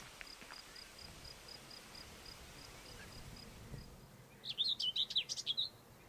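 Common whitethroat singing one short, scratchy, fast twittering phrase lasting about a second and a half, near the end. Before it, a faint run of evenly spaced high pips, about five a second.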